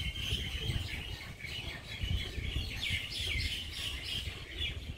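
Small birds chirping in quick runs of short, high notes, busiest in the second half, over a low rumble.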